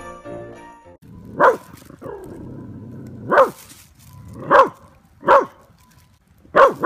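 A corgi barking five times, single sharp barks spaced a second or so apart.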